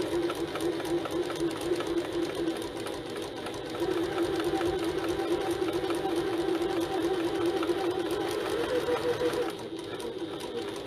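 Janome HD9 sewing machine running at a steady fast pace, basting a seam along piping on a straight gusset panel. The stitching eases briefly a little before halfway and drops off near the end.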